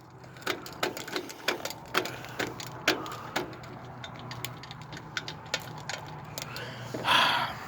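Craftsman LT1000 riding mower failing to crank: a run of sharp clicks, about two a second at first and sparser later, with the engine never turning over, over a faint low hum. A short hiss comes near the end.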